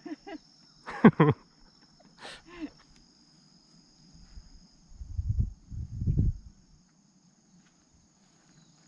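Insects trilling steadily in a high, even tone, with brief bits of a man's voice in the first few seconds and two dull low thumps about five and six seconds in.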